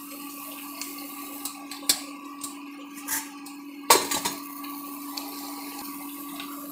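Steady hum of a running induction cooktop, with small clinks of steel spice-box cups and one loud metal clatter about four seconds in as the steel spice-box lid is handled.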